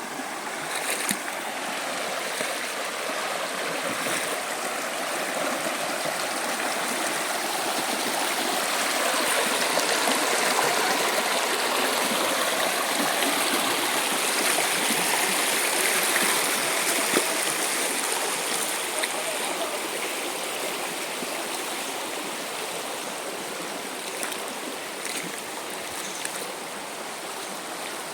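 River water flowing, a steady rush that grows louder toward the middle and eases off near the end.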